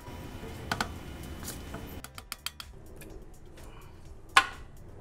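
Light metallic clicks and clinks from handling the aluminium lower crankcase casting of a Toyota 1ZZ-FE engine block as it is worked loose and lifted off: a quick run of small clicks about two seconds in, and one sharper clink with a brief ring near the end.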